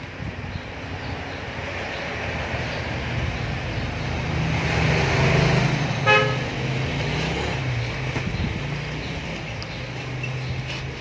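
A motor vehicle's engine hum grows louder and then fades as it passes, with a short horn toot about six seconds in.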